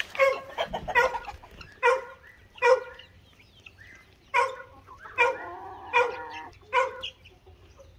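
Short, sharp animal calls repeated about ten times, a little under a second apart, each with a clear pitch and a sudden start.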